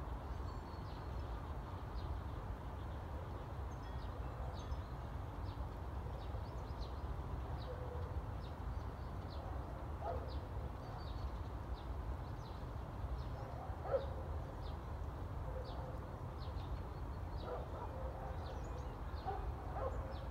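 Small birds chirping again and again, short high calls scattered throughout, over a steady low rumble. A few louder short calls in a lower pitch come in between, the loudest about two-thirds of the way through.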